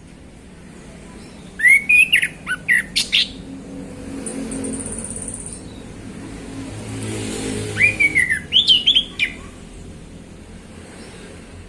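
Male chestnut-capped thrush (anis kembang) singing two short phrases about six seconds apart. Each opens with a whistle that rises and falls and runs into a quick string of sharp high notes.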